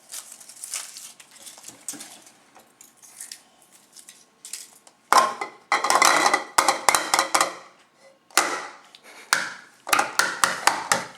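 Foil wrapper of a Kinder Surprise egg crinkling. About five seconds in comes a quick run of sharp knocks and cracks as the chocolate egg is broken open and its pieces handled.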